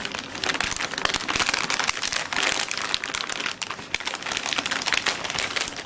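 Plastic anti-static bag crinkling and crackling as a computer motherboard is slid out of it, a dense run of small crisp crackles that stops just before the end.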